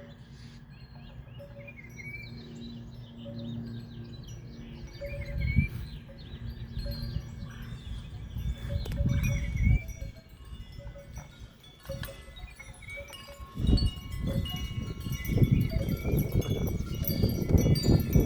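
Gusty wind buffeting the microphone in deep rumbling surges that come and go and grow stronger near the end, with scattered high ringing tones over it.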